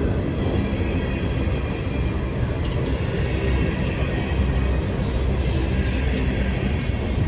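Freight train rolling past at close range: a steady, continuous rumble of cars on the rails.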